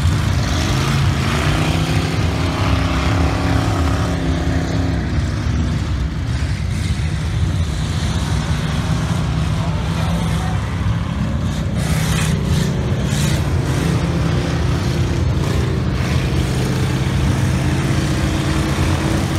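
Dirt-track bomber-class stock cars racing laps, their engines revving up and down as they go through the turns and down the straights.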